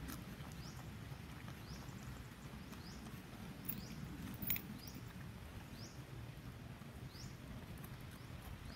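A pig snuffling and chewing on cut grass, a steady rough crackle. A short rising chirp repeats about once a second behind it, and a sharp click comes about halfway through.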